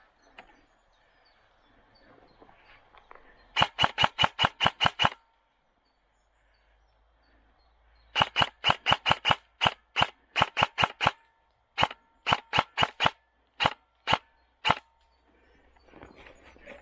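Specna Arms E19 airsoft electric rifle firing sharp single shots in quick strings. About ten come at roughly seven a second, then after a pause a longer string of shots that slows to single shots spaced about half a second apart.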